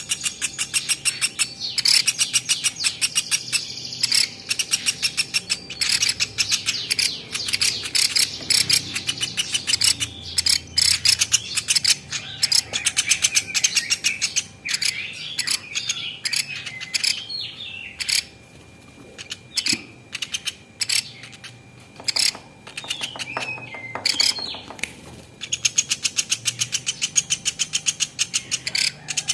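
Platuk beras, a small woodpecker, calling in long runs of rapid, sharp ticking notes, with sweeping chirps between them and a few short pauses.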